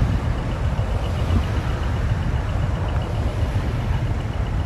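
Large tour coach's diesel engine running as the coach rolls slowly past, a steady low rumble.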